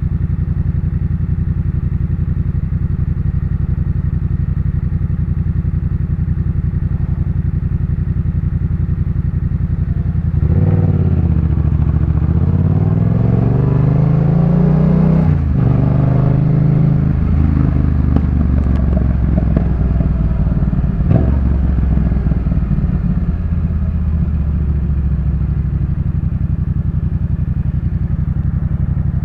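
Yamaha MT-07's parallel-twin engine breathing through a Jeskap K4 full aftermarket exhaust, running at a steady low note. About a third of the way in it accelerates, the pitch rising and then dropping at a gear change about halfway through, before settling back to a steady note near the end.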